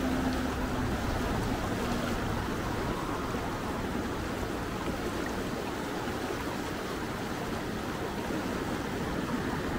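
Steady wash of a rushing mountain river, the Gallatin's current running over its rocky bed.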